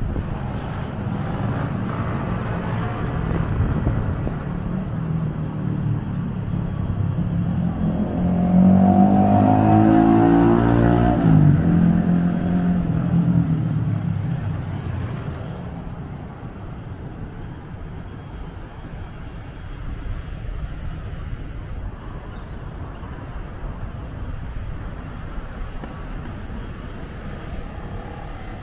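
Road traffic rumbling steadily. From about eight seconds in, one vehicle passes close, louder than the rest, its engine note falling in pitch as it goes by. The traffic then drops to a lower rumble.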